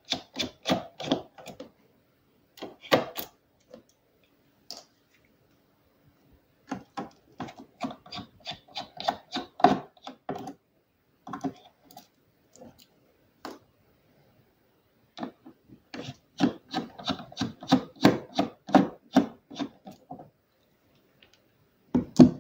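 A small hand screwdriver backing out the screws that hold a mechanical keyboard's PCB to its plate. It makes bursts of quick scraping clicks as the handle is twisted, with pauses between screws. There is a short clatter near the end as the loose screws are set down in a pile.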